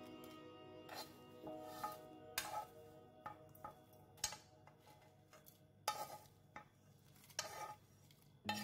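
Metal spoon clinking and scraping against a stainless steel mixer-grinder jar and a pan as roasted grated coconut and dried red chillies are spooned in: a string of irregular sharp clinks, over soft background music.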